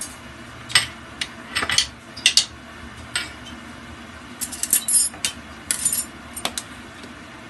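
Kitchen utensils and dishes clinking: a series of sharp clinks and clatters, scattered through the first few seconds and bunched more thickly from about four and a half to six and a half seconds, a few with a brief metallic ring.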